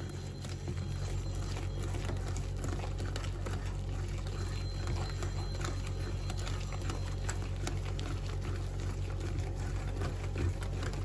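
A hand beating a thick wheat-flour and milk batter in a glass bowl: a steady wet patter of small squelches over a low steady hum.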